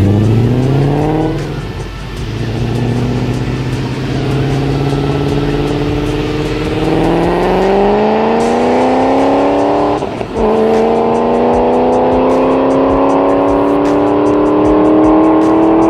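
Ford Shelby GT500's supercharged V8 accelerating hard down a drag strip, its pitch climbing steadily through the gears, with a quick drop at a gear change about ten seconds in before it climbs again.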